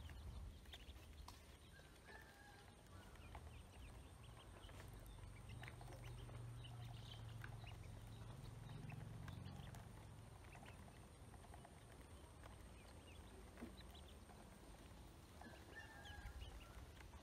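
Faint, scattered clicking of ducklings' bills pecking feed in a plastic basin, with a soft peep early on and another near the end, over a low hum.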